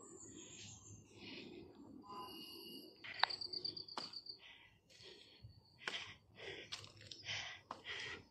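Forest birds calling: a high whistle falling in pitch at the start, a few steady high notes about two seconds in, and a quick high trill about three seconds in. Scattered knocks and rustles sound around the calls.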